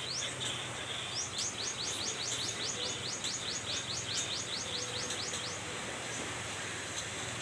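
A bird singing a rapid series of short, upward-sweeping high chirps, about five a second, for about four seconds, over a steady background hiss.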